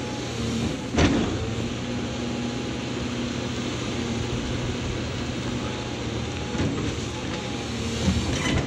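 Caterpillar 349F excavator's diesel engine running steadily under load, with a faint wavering whine over it. A single sharp knock comes about a second in, and a smaller one near the end, as the bucket works into the ground at a stump.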